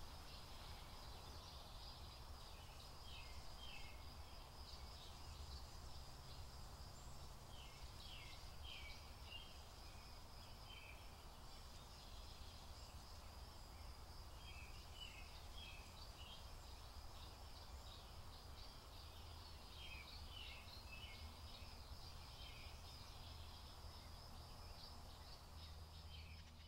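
Faint outdoor ambience: a steady high insect trill with scattered bursts of bird chirping over a low rumble, fading out at the very end.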